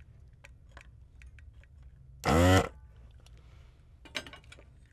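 Faint scattered clicks and rustles as a guitar pedal's circuit board and its hookup wires are handled. About two seconds in, a short, loud, low hum from a man's voice.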